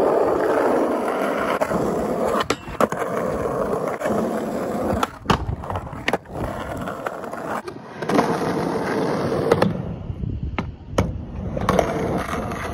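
Skateboard wheels rolling over rough concrete, a steady rushing rumble broken by sharp clacks of the board several times.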